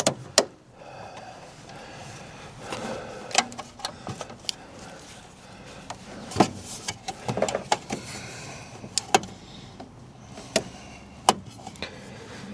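Irregular sharp clicks and knocks of a battery tester and its clamps being handled and clipped onto a car battery.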